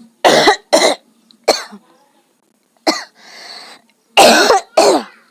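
A woman coughing on purpose, forced coughs rather than a real cough. There are about six hard, short coughs, mostly in pairs, with a breathy rasp after the fourth.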